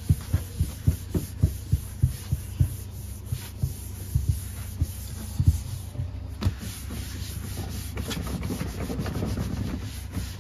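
Cloth wiping a sprayed tabletop and drawer stand: rubbing strokes with soft thumps about three a second at first, then a quicker scrubbing rustle near the end, over a steady low hum.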